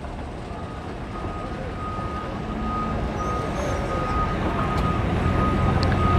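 An engine running steadily and growing louder, with low hum lines coming in about two seconds in and a thin steady high-pitched whine over it.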